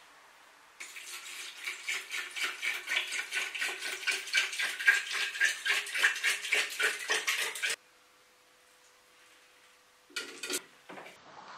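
Cola glugging and splashing out of a tilted plastic bottle into the hollowed-out flesh of a watermelon, a fast uneven run of gurgles for about seven seconds that stops abruptly. Near the end, a short rattle as mint candies are dropped into the cola.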